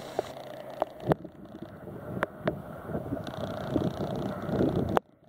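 Wind buffeting the microphone over choppy lake water, a gusty rumble with a few sharp clicks. The sound cuts off suddenly near the end.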